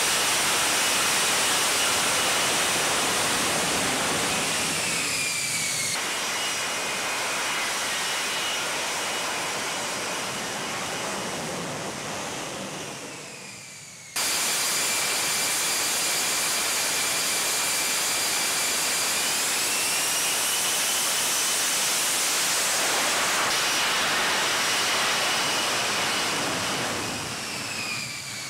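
F-35B Lightning II's jet engine running at high power, a loud rush with a high turbine whine on top, as the jet hovers for a vertical landing. The whine slides down in pitch a couple of times, the sound fades and cuts off abruptly about halfway through, then a second stretch of jet noise starts at once and runs steadily before easing off near the end.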